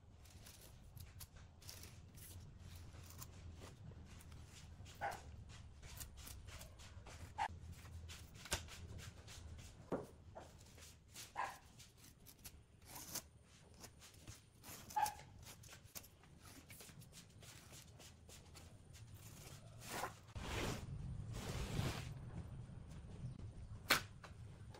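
Light workbench handling as a shape is traced onto wooden boards: a pen scratching, and a template and boards shifted and tapped on the wooden bench, with scattered light clicks. A longer scraping rustle comes about two-thirds through, and a sharp click near the end.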